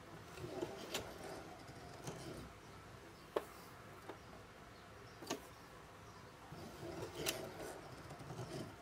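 Singer Heavy Duty 4432 sewing machine turned slowly by a hand crank, stitching a leather strap: quiet, scattered clicks from the needle mechanism, the sharpest about three and a half seconds in.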